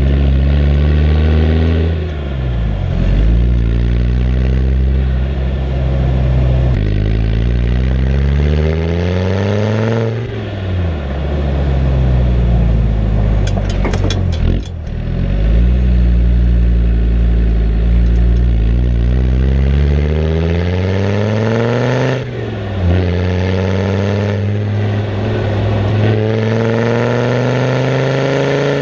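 Land Rover Td5 five-cylinder turbodiesel with a stainless steel exhaust, accelerating through the gears: the engine note climbs in pitch and falls back at each gear change, about four times.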